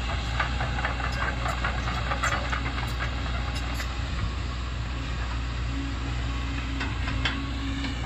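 Kobelco SK140 crawler excavator's diesel engine running steadily under working load, with bursts of metal clanking and rattling from the machine, thickest in the first three seconds and again near the end.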